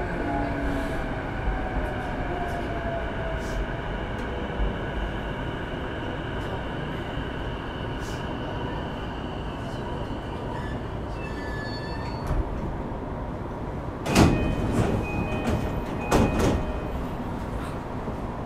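JR East E233 series 5000 electric train, heard from inside, with its motor whine falling in pitch as it brakes and its running sound dying away to a standstill. About 14 and 16 seconds in come two loud thuds with short tones, from the car's sliding doors working.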